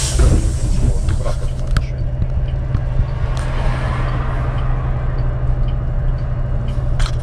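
City bus engine running with a steady low drone, with a few short clicks and rattles.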